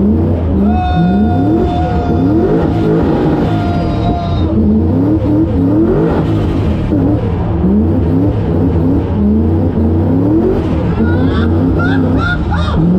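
Ford Mustang RTR drift car's supercharged Boss 302 5.0 V8 revving hard over and over while being drifted, its pitch climbing and dropping in quick repeated surges. A steady high whine is held for a few seconds near the start.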